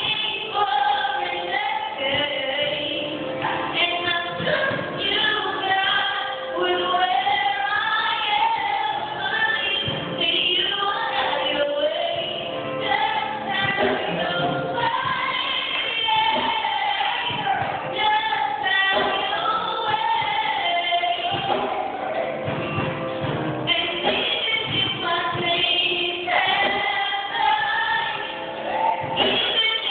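A woman singing into a handheld microphone, her voice amplified through a loudspeaker.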